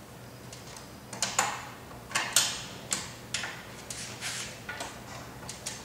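Wrench tightening the handle-height nuts on an airless line striper's handle bracket: a run of sharp metallic clicks and ticks, about three a second, unevenly spaced, some louder than others.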